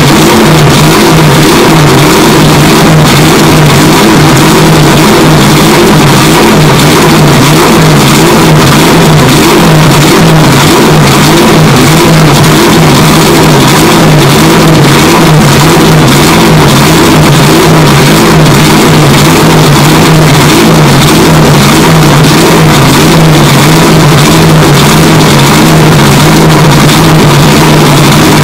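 Corvette Z06 GT3 race car's V8 running steadily on its display stand, a deep pulsing exhaust note. The audio is bass-boosted and driven into heavy clipping, so it sounds harsh and distorted.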